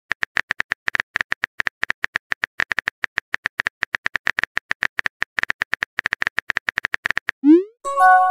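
Simulated phone-keyboard typing clicks from a texting-story app, a rapid even run of several taps a second. The typing stops and is followed by a short rising swoosh and a chime of several notes as the message is sent.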